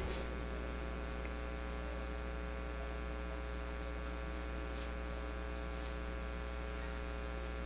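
Steady electrical mains hum in the microphone and sound system: a low buzz with many evenly spaced overtones over a faint hiss, unchanging throughout.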